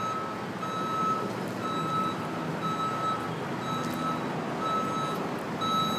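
Backhoe's reversing alarm beeping steadily, about one beep a second, over the low running of its engine.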